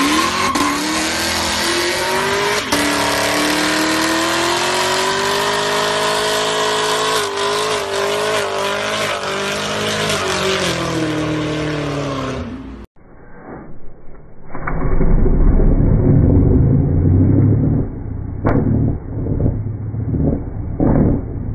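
Chevrolet Camaro engine revving up and held at high revs through a burnout, rear tyres spinning on the asphalt, then the revs dropping. After a sudden cut comes a muffled low rumble with a few sharp knocks.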